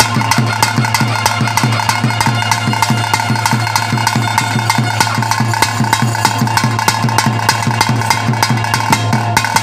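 Traditional ritual music for a bhuta kola: fast, steady drumming with long held melodic notes over it and a constant low drone.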